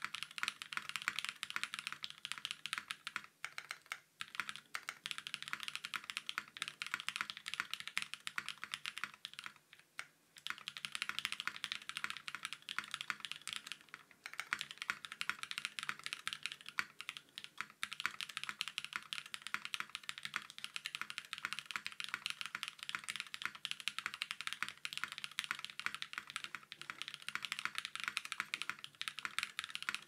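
Continuous fast typing on a Think6.5 V2 gasket-mounted mechanical keyboard with lubed and filmed Durock POM Piano Black switches, an FR4 plate and ePBT keycaps: a dense run of keystroke clicks, with brief pauses about 4 and 10 seconds in.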